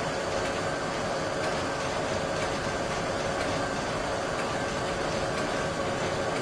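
Steady mechanical drone: an even rushing noise with a constant hum, holding one level throughout.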